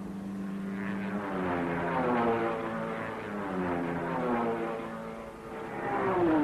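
Racing cars passing at speed one after another, each engine note sliding down in pitch as it goes by. The loudest pass comes near the end.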